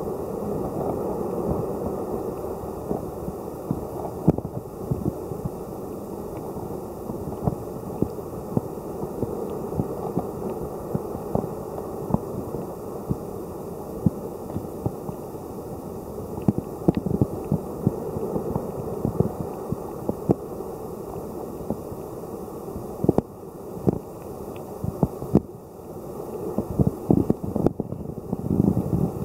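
Muffled underwater ambience of a shallow tidepool: a steady low rush of moving water with many scattered clicks and crackles, denser near the end.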